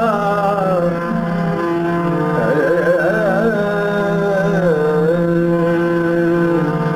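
Sindhi Sufi kalam music: an ornamented melody that slides and wavers in pitch over a steady low drone.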